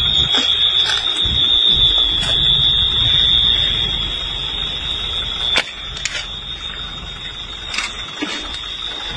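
A continuous high-pitched electronic alarm tone sounding steadily over a low rumbling noise, with scattered sharp knocks. The rumble drops away about five and a half seconds in.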